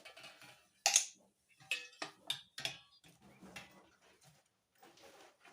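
Measuring spoon clinking and scraping against a container while scooping powder, a series of sharp taps with a slight ring, loudest about a second in.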